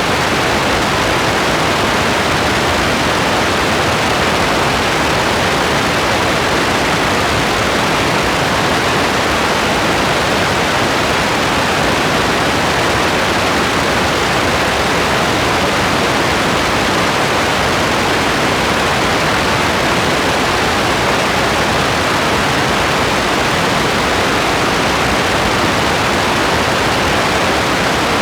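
Steady, even hiss of heavy rain that holds unchanged, without distinct drops or thunder.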